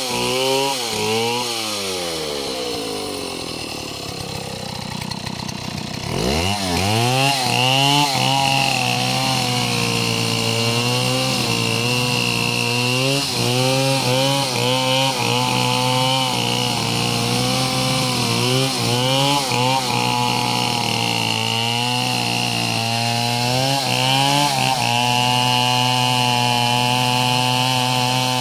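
Two-stroke chainsaw cutting mango wood: the engine winds down to a low idle about a second in, then is revved up sharply about six seconds in and runs at high speed through the cut into the trunk, its pitch wavering as the chain bogs under load.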